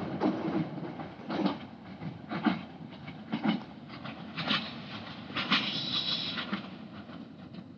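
Intercity passenger train running away over jointed track: its wheels clack over the rail joints about once a second over a rumble that slowly fades. A short high-pitched metallic ring from the wheels on the rails comes about five and a half seconds in.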